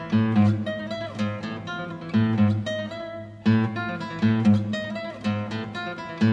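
Background music: an acoustic guitar piece played in a steady rhythm, plucked and strummed notes over a repeating bass line.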